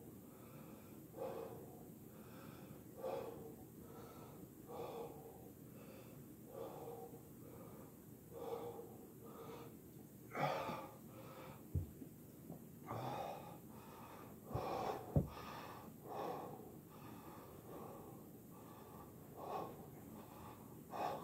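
A man breathing hard, winded from sets of push-ups: a heavy exhaled breath about every two seconds. A few low thumps come around the middle.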